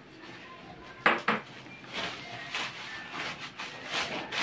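Dishes knocking together twice in quick succession about a second in, followed by newspaper wrapping rustling and crumpling as the next dish is unwrapped, loudest near the end.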